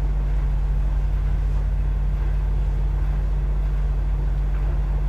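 Steady low background hum with a faint hiss over it, unchanging throughout.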